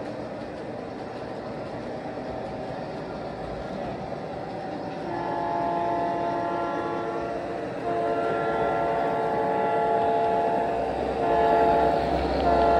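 Model N&W SD45 diesel locomotive's onboard sound blowing a multi-note horn in the grade-crossing pattern: two long blasts, a short one, then a final long blast starting near the end. Beneath it the train's running rumble grows louder as the locomotive draws near.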